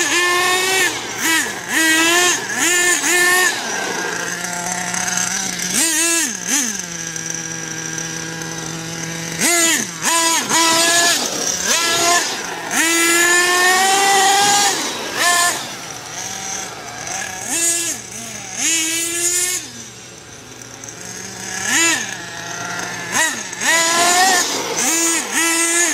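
Radio-controlled car's motor revving up and down in short throttle bursts as the car is driven, holding a steady pitch for several seconds about four seconds in.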